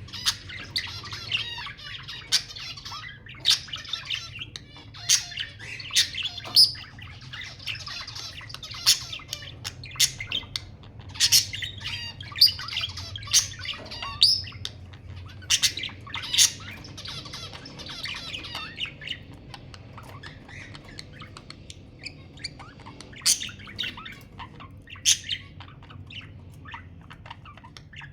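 Budgerigars chattering in a continuous rapid warble, broken by frequent sharp, loud chirps and squawks. The chatter thins out for a few seconds past the middle, then picks up again.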